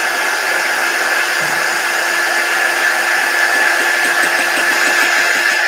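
Handheld craft heat tool running, its fan giving a steady blowing noise with a constant high whine, aimed at freshly applied chalk paste to dry it.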